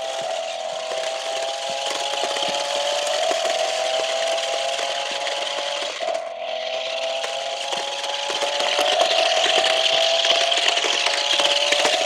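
Small electric drive motors of a 1:16-scale RC stunt car whirring as it drives, with a steady whine that slowly rises in pitch and drops back about halfway and again near the end. A hiss from the wheels rolling on rough, gravelly asphalt runs under it.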